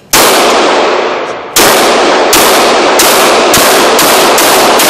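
FN Five-seven pistol in 5.7×28 mm fired about eight times, the shots coming faster and faster as the magazine is emptied. Each shot is a sharp crack followed by a long echo off the walls of the indoor range.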